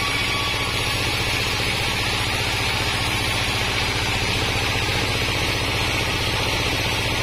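Diesel-engine-driven band sawmill running steadily: the engine beats fast and evenly underneath while the band-saw blade rips a plank of wadang wood.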